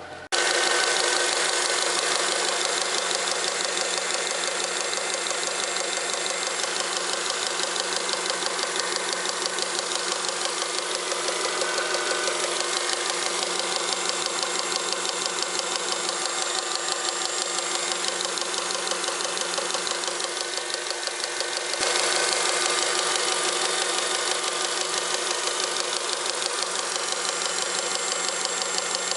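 Honda Accord engine idling with a fast, even knocking from the accessory belt drive, which gets louder about three-quarters of the way through. The knock comes from a cheap aftermarket poly-V belt, cracked and worn through on its ribs, beating on the pulleys.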